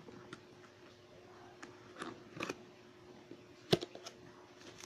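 Cardboard product box being handled and its flap pulled open: scattered scrapes and crinkles of cardboard and bubble wrap, with a sharp snap about three and a half seconds in, the loudest sound. A faint steady hum runs underneath.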